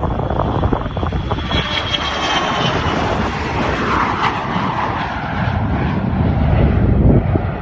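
Business jet's engines passing close by: a loud roar with a high whine that drops in pitch as it goes past, and a low rumble that swells near the end.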